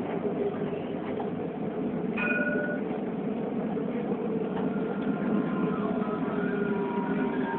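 Alstom Citadis tram running, heard from inside the driver's cab: a steady rumble of wheels on rail with a faint motor whine that slides slightly lower in pitch in the second half. A short beep sounds about two seconds in.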